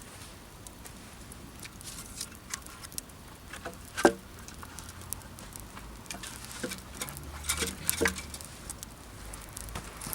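Wood campfire crackling, with scattered sharp pops; the loudest comes about four seconds in, and a few more come close together near eight seconds.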